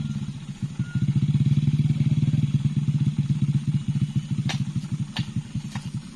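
An engine idling with a fast, even putter, dipping briefly near the start and then steady. Several sharp knocks come in the second half.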